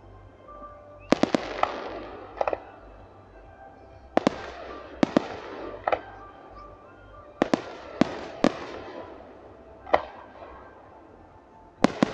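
Aerial firework shells bursting in quick succession: about a dozen sharp bangs, some in close pairs and clusters, each followed by a fading crackling hiss as the stars burn out.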